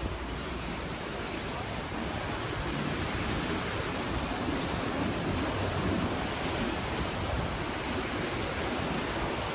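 Ocean surf breaking and washing up onto a sandy beach: a steady rushing noise.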